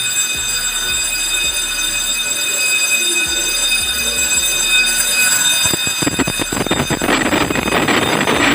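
Electric fire alarm bell ringing continuously, the panel in alarm after a smoke detector sensed smoke. The ringing gets louder and rougher about six seconds in.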